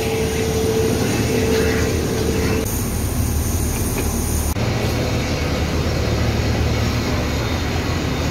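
Steady low engine rumble of airport apron vehicles, with a steady whine over it for the first two and a half seconds. The sound changes abruptly about two and a half and again about four and a half seconds in.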